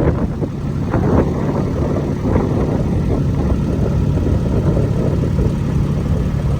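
Kubota farm vehicle's engine running steadily as it drives across a paddock, a low continuous hum with a few brief rattles over it.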